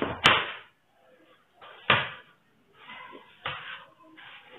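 A long ruler being picked up and set down on paper over a wooden tabletop: three sharp knocks about a second and a half apart, with paper rustling between them. Near the end a marker scratches faintly as a line is drawn along the ruler.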